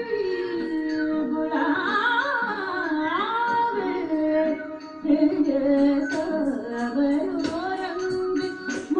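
Carnatic music accompanying Bharatanatyam: a singer's melody that slides and bends between held notes. From about five seconds in, sharp percussion strokes come in at an uneven beat.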